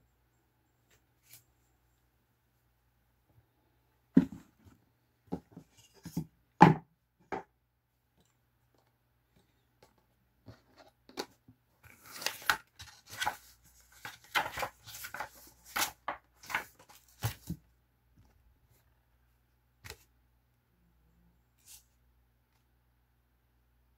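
Kit parts and a cardboard box being handled on a desk: a few sharp knocks about four to seven seconds in, then a longer stretch of rustling and clatter, with the sound trailing off to an occasional tap.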